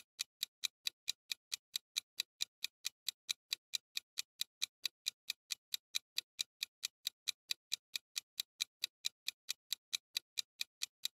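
Clock-ticking sound effect marking a quiz countdown timer: short, even ticks at just over four a second, keeping a steady pace throughout.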